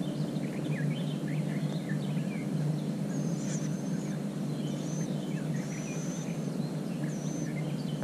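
Small birds chirping, with several short high whistles, over a steady low hum, recorded through a GoPro HERO5 Black's built-in microphone. This is a sample of that camera's built-in mic sound, which the owner finds not very good.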